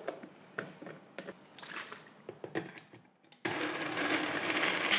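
Plastic clicks and knocks as a small bullet-style blender's cup and blade lid are handled. About three and a half seconds in, the blender starts running with a steady whir, blending soy milk with soft pitted dates.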